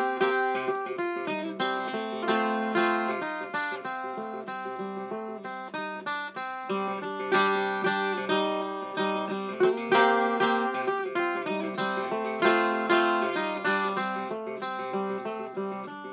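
Old Regal four-string tenor guitar played fingerstyle in an open tuning: a steady run of plucked single notes and chords, the strings ringing on between picks.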